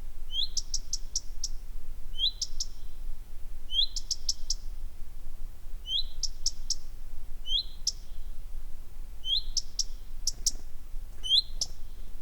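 A small bird repeating the same short call about seven times, roughly every couple of seconds: each a quick upward-sliding note followed by a few rapid high ticks.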